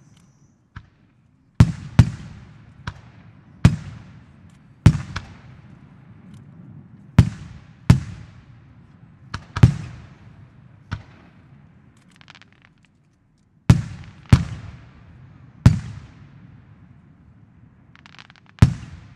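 Aerial firework shells bursting: about fifteen sharp booms in irregular clusters, with short lulls between them, each trailing off in an echo.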